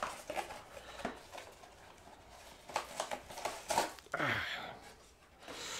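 Cardboard packaging being handled: scattered taps, scrapes and rustles as a white cardboard tray is pulled and folded open, with a louder rustle about four seconds in.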